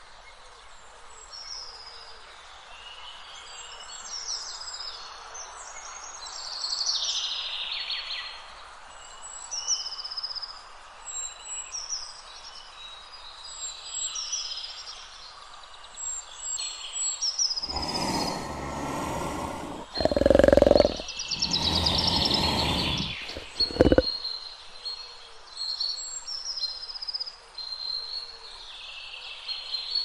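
Birds chirping and calling against an outdoor background. About two-thirds of the way in, a big cat growls and roars several times over roughly six seconds, much louder than the birds.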